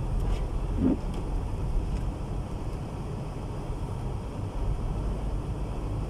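Steady low drone inside a car cabin while driving on a snow-covered road, engine and tyre rumble mixed with wind noise. One brief higher sound comes about a second in.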